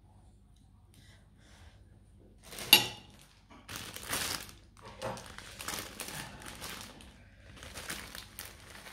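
A sharp knock about three seconds in, then repeated crinkling of a thin plastic bag as it is handled and a spoon scoops inside it.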